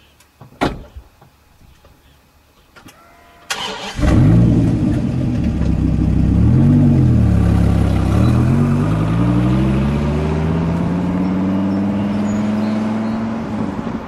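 Dodge Viper V10 starting up about three and a half seconds in after a few faint clicks, revving once, then pulling away with its pitch climbing steadily as it accelerates.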